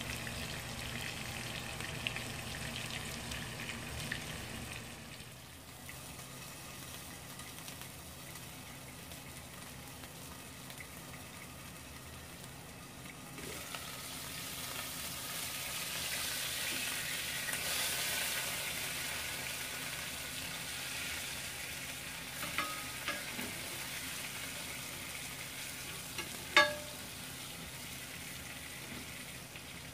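A salmon steak sizzling as it fries in oil in a flat griddle pan: a steady hiss that drops a little about five seconds in and swells again in the middle. There are a few light clicks, then near the end one sharp clink with a short ring.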